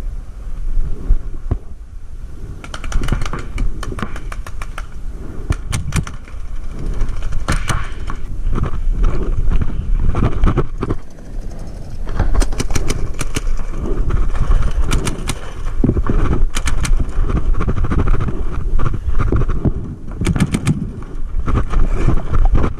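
Paintball markers firing in rapid strings of shots, several bursts scattered through, over a steady rumble of wind and movement noise on the camera.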